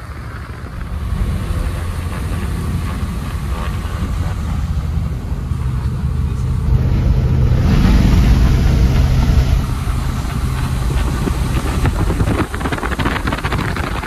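Floatplane's single piston engine and propeller droning steadily, heard from inside the cabin, swelling louder about seven seconds in as the plane comes down onto the lagoon. In the last seconds the float is on the water and spray hisses along it under the engine note.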